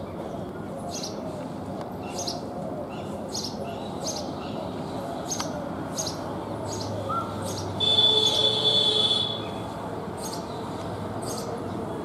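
House sparrow chirping: short, high chirps repeated about once or twice a second, with a pause in the middle. About eight seconds in, a louder steady high whistling tone of unknown source sounds for about a second and a half.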